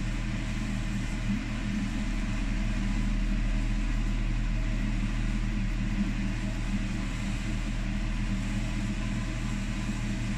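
A steady low mechanical hum with a few held low tones running underneath.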